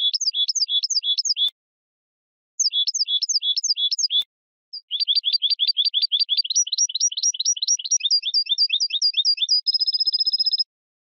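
European goldfinch singing: two short runs of quick repeated twittering notes, then a long fast trill that ends in a buzzy held note, with no background noise between phrases.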